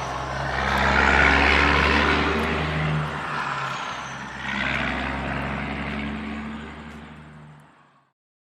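Radio-controlled construction vehicle running, a steady low motor hum with a rushing mid-range noise that swells twice, then fades out to silence near the end.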